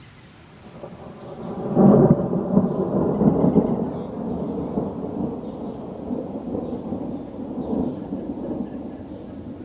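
Thunder: a peal that builds about a second in, is loudest at about two seconds, then rolls on as a long low rumble that slowly fades.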